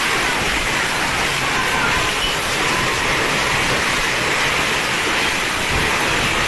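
Windstorm: strong wind rushing steadily with no let-up.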